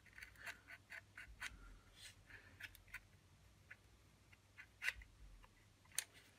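Faint, scattered small clicks and taps of plastic and metal airsoft parts being handled as a bolt release is fitted between the gearbox and the lower receiver, with two slightly louder clicks near the end.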